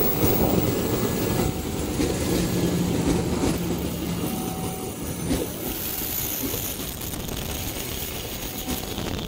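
Passenger train's economy coaches rolling past close by, a steady heavy rumble of wheels on the rails that eases slightly in the last few seconds.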